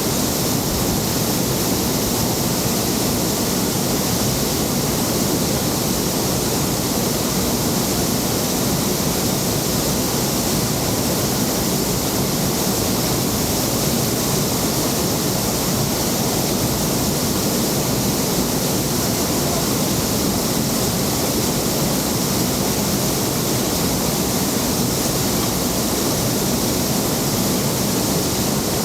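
Waterfall running close by: a loud, steady rush of falling water with no change.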